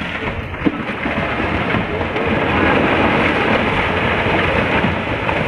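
Rocks and earth tumbling down a hillside in an active landslide: a dense, continuous clatter of many small impacts over a low rumble, growing louder about two seconds in.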